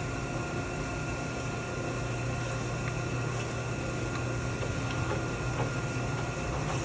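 Royal Master 12x3 centerless grinder running steadily, its hydraulics, main grinding wheel and regulating wheel all turning, with a constant low hum and a thin steady high whine, while the regulating wheel is being brought up to speed.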